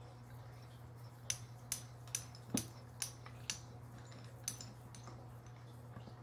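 Hand-turned threaded press tool clicking sharply and unevenly, about two clicks a second, as its rod is twisted down to press a bushing into a control arm.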